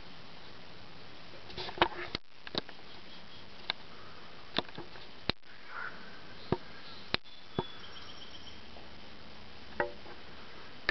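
A series of sharp clicks and taps, about a dozen at uneven intervals, over a steady low hiss, with a faint thin high tone briefly past the middle.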